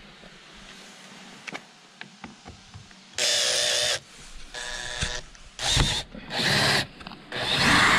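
Cordless drill running in short bursts, working on fixings at a car seat frame. The first burst, about three seconds in, is the longest and loudest, and four or five shorter runs follow. A few light handling clicks come before it.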